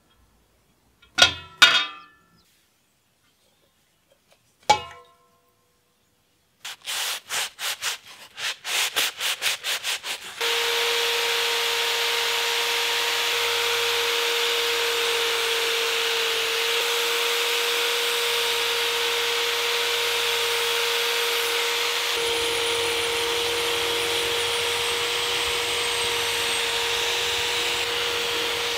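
A few sharp ringing clinks of metal on glass, then a cordless drill with a wire wheel brushing rust off a steel bayonet blade: first in short rapid bursts, then a steady scrubbing with a constant motor whine from about ten seconds in.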